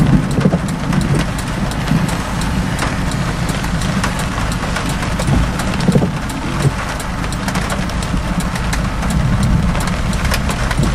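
A car engine idling, heard from inside the stationary car, with raindrops tapping on it in scattered light clicks.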